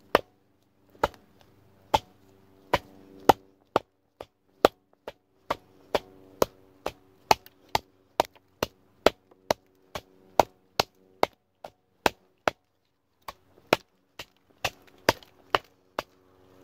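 Heavy fixed-blade survival knife chopping into a thick log: a long run of sharp blade-into-wood strikes, about two to three a second, with a brief pause about three-quarters of the way through.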